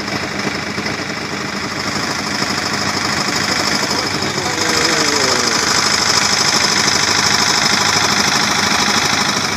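A motor vehicle's engine running with a fast, even knocking rattle, growing louder over the first several seconds and then holding steady.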